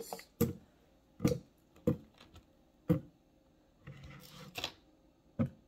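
Whole strawberries dropped one at a time into a clear blender cup holding some water, about six short knocks spaced roughly a second apart.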